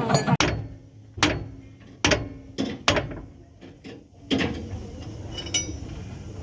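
Irregular sharp metal knocks and clanks, about eight in the first four and a half seconds, some leaving a short ring, followed by a few faint metallic clicks.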